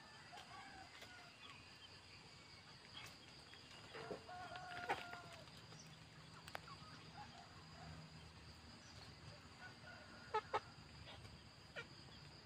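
Chickens clucking faintly, with a louder call about five seconds in and two quick sharp clicks a little after ten seconds.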